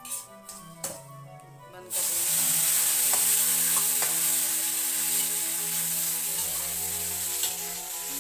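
Water poured into hot ghee-roasted semolina and sugar in a kadhai, setting off a loud sizzle and hiss about two seconds in that slowly dies down as the mixture turns to a wet paste.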